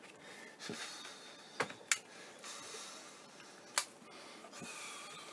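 Battery being pushed into the bay of an upturned Dell laptop: a few sharp plastic clicks, the loudest about two seconds and nearly four seconds in, between soft sliding and rubbing of hands on the plastic case.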